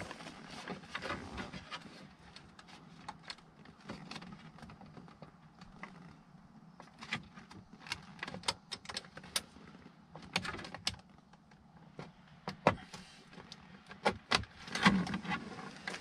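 Scattered light clicks, taps and rattles of hands working the trim cover around a 2003 Dodge Ram's steering column and ignition lock loose, with a denser run of sharp clicks in the middle.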